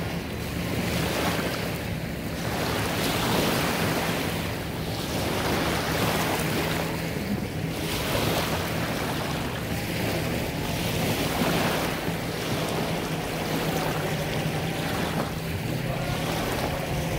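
Small lake waves breaking and washing onto a sandy shore, the wash swelling and easing every two to three seconds, with wind on the microphone and a low steady hum from a distant motorboat engine.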